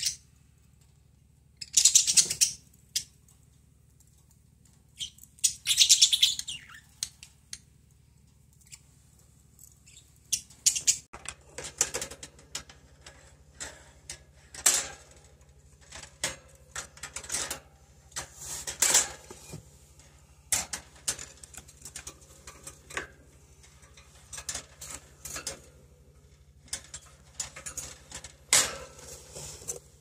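Pet budgerigars moving about their cage and clay nest pot: two loud short bursts of bird sound, then many light clicks, scratches and brief chirps, over a steady low hum.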